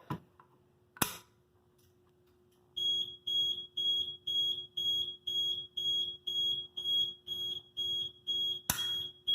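A sharp click about a second in, then, from about three seconds in, a fire alarm sounding: a high-pitched beep repeating about twice a second. Another click near the end.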